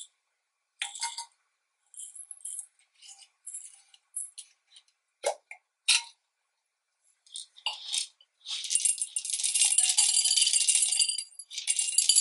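Wooden beads and glass jars clicking and clinking as they are handled, in short separate bursts. From about eight seconds in, a dense, steady rattle of small wooden beads pouring from a wooden bowl into a glass mason jar, with a short break near the end.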